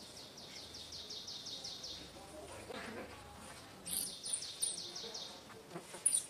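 A bird calling in a fast, even run of short high chirps, about seven a second; it stops about two seconds in and starts again near the four-second mark.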